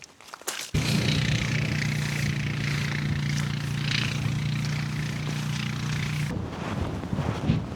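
An engine running steadily at an even pitch, starting abruptly about a second in and cutting off suddenly near the end, after which footsteps are heard.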